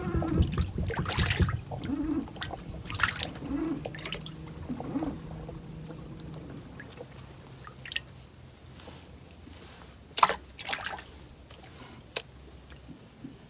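Water trickling and sloshing around a small fishing boat, with a low steady hum in the first half. A few sharp clicks come near the end.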